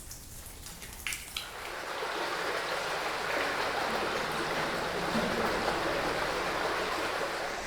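Running water of a stream flowing steadily, fading in over the first couple of seconds after a few sharp drip-like clicks.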